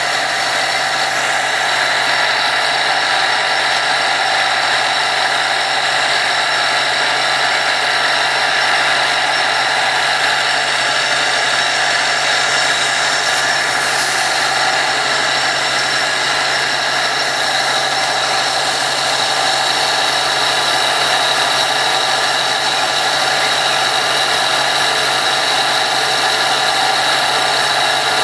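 Steady, unchanging mechanical drone of a running motor, with a brief splash of a dog in water about halfway through.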